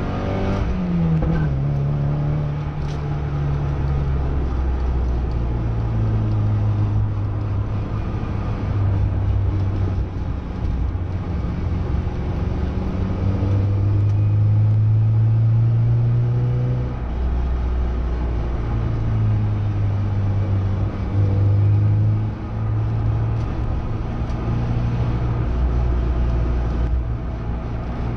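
Porsche 944 NA's 2.5-litre four-cylinder engine heard inside the cabin through its 3-inch custom exhaust with twin Simons mufflers, driving at moderate road speed. The note falls about a second in, then holds fairly steady with a few small rises and dips.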